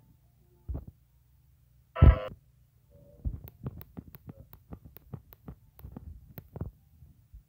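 A short, loud pitched blip about two seconds in, then a run of soft, evenly spaced clicks, about four a second, as a phone's volume-down button is pressed repeatedly to lower the media volume.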